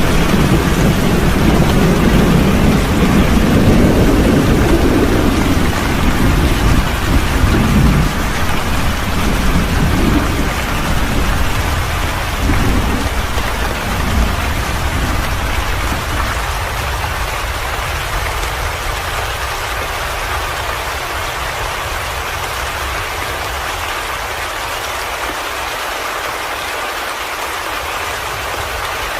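Steady heavy rain falling, with a long low rumble of thunder over the first several seconds that breaks up and dies away by about halfway, leaving only the rain.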